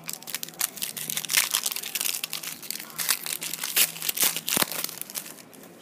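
Foil trading-card pack wrappers (Panini Prizm hockey packs) crinkling and crackling in the hands as they are picked up and handled, an irregular crackle that dies down near the end.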